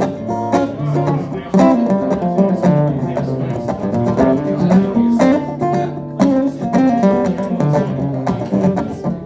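Acoustic guitar picking an instrumental break between sung lines of a country-style song, with a steady run of notes over a repeating bass line.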